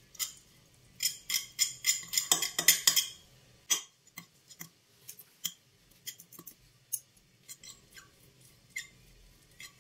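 Two metal forks clicking and scraping against a ceramic plate as boiled chicken is pulled apart into shreds: a quick run of clicks for about two seconds, then scattered single clicks.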